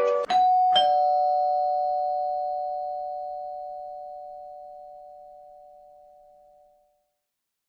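Two-tone chime doorbell ringing ding-dong: a higher note, then a lower one about half a second later. Both ring on and fade away over about six seconds.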